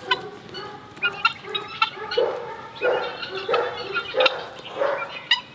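A flock of Muscovy ducks calling close by: many short calls in quick succession, the louder ones coming in the second half.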